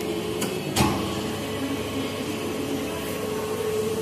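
Gurutzpe Super AT 3000/400 lathe running with a steady hum and a faint held tone. Two sharp clicks come near the start, the louder one about a second in.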